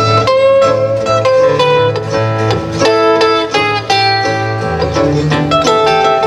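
Live bluegrass instrumental break: a mandolin and two acoustic guitars picking quick notes over steady low bass notes, with no singing.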